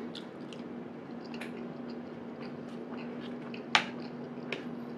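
A person chewing a mouthful of food, with small clicks of utensils and one sharp clack about three-quarters of the way through, over a steady low hum.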